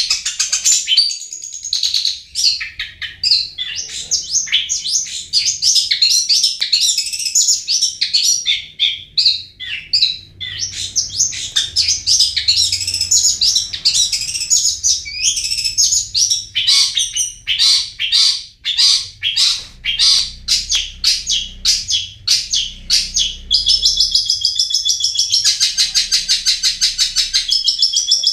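Long-tailed shrike (cendet) singing a fast, unbroken stream of short, sharp chattering notes. About three-quarters of the way through, the song turns into a steady, rapid trill.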